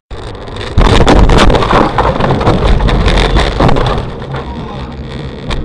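A car crash heard from inside the car through a dashcam. After a moment of driving noise, a sudden very loud din of crashing and knocking lasts about three seconds as the car leaves the road and its windshield breaks. It then settles to a lower steady noise.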